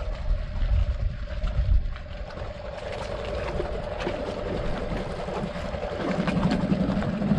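Inflatable dinghy's small outboard motor running slowly with a steady hum as it noses up to a jetty. Wind buffets the microphone for the first couple of seconds.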